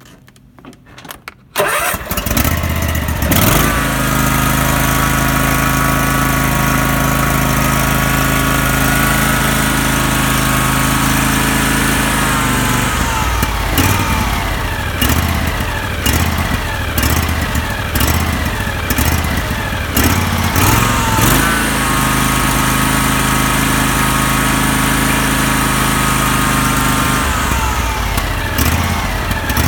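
Husqvarna YTH18K46 riding lawn tractor engine starting about a second and a half in, then idling. For long stretches its speed surges up and down about once a second, the rough idle that is its fault.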